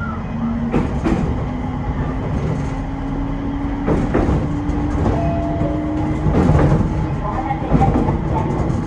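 Electric train pulling out of a station and gathering speed: its motor whine rises slowly in pitch while the wheels give a few sharp clacks over the points and rail joints.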